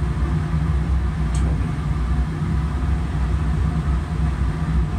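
A steady low rumble of background machinery, with a faint click about a second and a half in.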